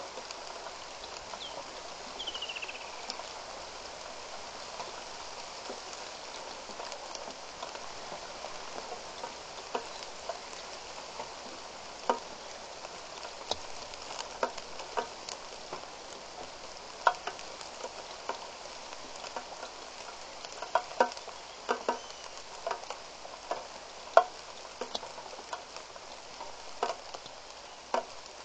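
Steady rain falling on the surface of a waterhole, an even hiss, with scattered sharp drop ticks that come more often in the second half. A short high falling note sounds about two seconds in.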